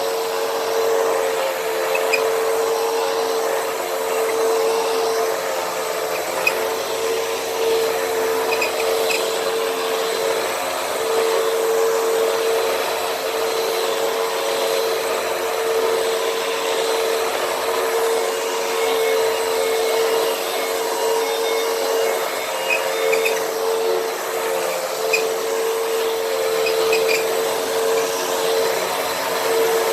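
Hoover WindTunnel bagless upright vacuum cleaner running on a rug: a steady motor whine over rushing airflow, the pitch wavering a little now and then as it is pushed over the pile.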